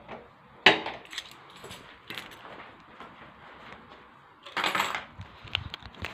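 A metal door handle and latch click about half a second in, followed by small metallic clinks and a short scuffing noise a little past four and a half seconds.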